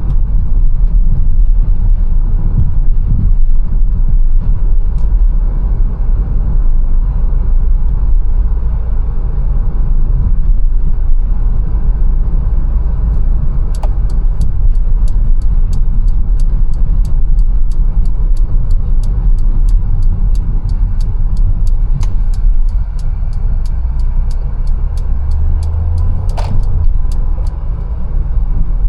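Steady low road and engine rumble in a Mercedes-Benz A180's cabin while driving. About halfway through, a turn-signal indicator starts ticking evenly, a few ticks a second, and stops shortly before the end.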